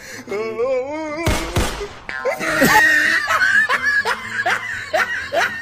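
A woman laughing hard in a run of short rising whoops, about three a second, with a short loud noise about a second and a half in.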